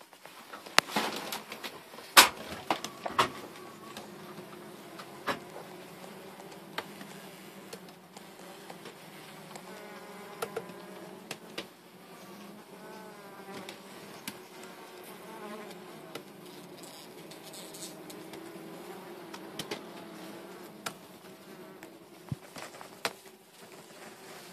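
A honeybee colony buzzing: a steady hum from many bees with a slightly wavering pitch. There are a few sharp clicks and knocks in the first few seconds.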